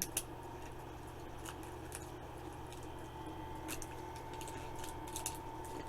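Small plastic clicks and rustles as a toy capsule and its plastic wrapping are handled, over a steady low hum.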